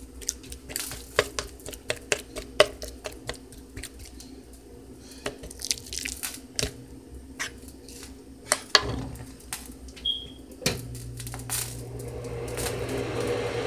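A fork repeatedly jabbing into a raw steak on a wooden cutting board: irregular sharp taps and clicks as the tines go through the meat and strike the board. About eleven seconds in, a steady low hum starts and grows slowly louder.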